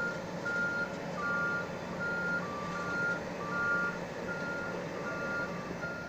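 Reversing alarms on heavy construction vehicles beeping: one steady high beep about every three-quarters of a second, with a second, slightly lower-pitched beeper joining about a second in. Engine noise runs underneath.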